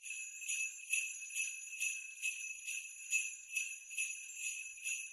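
Sleigh bells shaken in a steady, even rhythm, a little over two shakes a second.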